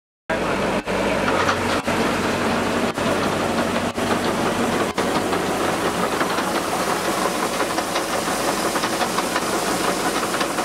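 Paddy combine harvester running: a loud, steady mechanical din of engine and threshing machinery. It cuts in abruptly just after the start.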